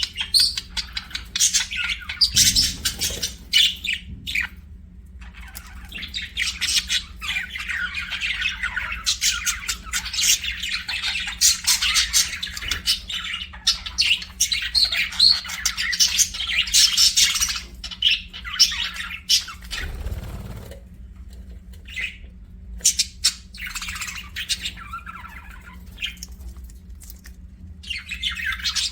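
Budgerigars chirping and chattering continuously, a flock of rapid warbling chirps and squawks with brief pauses, over a low steady hum.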